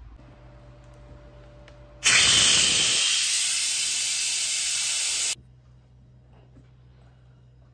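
A loud, steady hiss that starts abruptly about two seconds in and cuts off suddenly about three seconds later.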